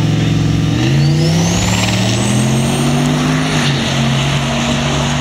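Turbocharged 4.8-litre V8 drag truck held at steady revs with boost built on the line, then launching about a second in: the engine note climbs with a rising turbo whistle. One upshift near the middle drops the pitch, and it pulls on steadily.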